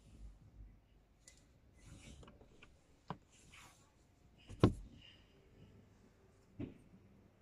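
Three plastic clicks from a car sun visor and its sliding vanity mirror cover being handled, the middle one a sharp snap much louder than the others, with soft rustling of a hand brushing the visor's fabric in between.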